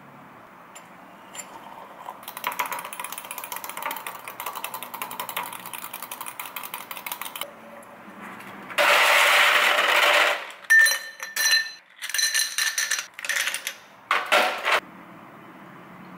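A metal spoon stirring a drink briskly in a glass, rapid clinking for about five seconds. Then ice going into a glass: a loud rush, followed by several sharp, ringing clinks of ice against glass.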